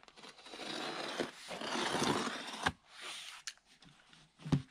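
Roll of Blueskin peel-and-stick membrane being handled and pulled across plywood: a crinkling plastic rustle for about two and a half seconds that ends in a sharp click. A few quieter ticks and a short knock follow near the end.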